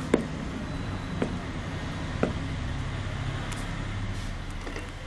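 Steel spoon stirring thick dosa batter in a glass bowl, clinking sharply against the bowl a few times, about once a second, over a steady low background hum.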